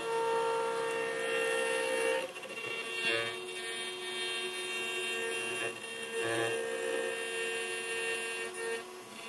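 800 W CNC router spindle running at speed as its end mill cuts an aluminium cylinder turning on the rotary fourth axis, a steady whine with cutting noise. The tone shifts and the cutting noise swells and eases every second or two as the tool moves along the part.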